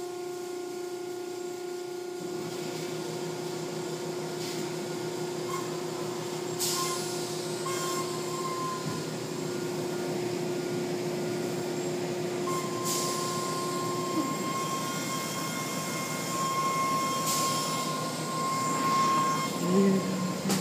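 Automatic tunnel car wash running, heard from inside the car: a steady machinery hum with several held tones, under the swish of water spray and cloth brushes washing over the car, with a few louder slaps. A low tone in the hum stops about two-thirds of the way through.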